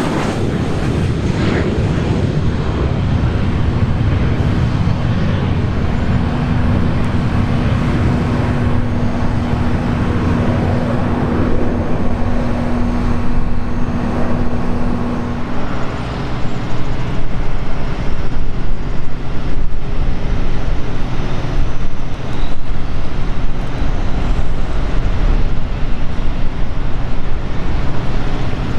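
Business jet's twin rear-mounted turbofans at takeoff power on the takeoff roll and climb-out, a steady rumble with a held hum. The hum cuts off abruptly about halfway in, and a louder, uneven rumble follows.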